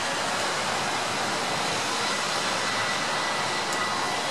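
Light rain falling, a steady even hiss.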